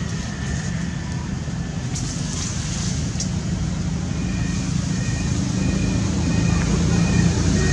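Low steady rumble of a motor vehicle, slowly growing louder. From about four seconds in, a faint short high chirp repeats about twice a second.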